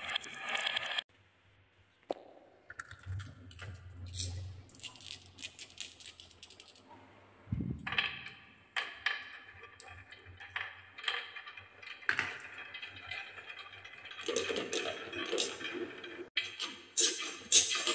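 Marbles rolling and clattering down a wooden marble run's spiral and slope tracks, with many sharp clicks as they knock against the wood. The sound cuts out for about a second near the start, then a new batch of dark balls, taken to be wooden, sets off.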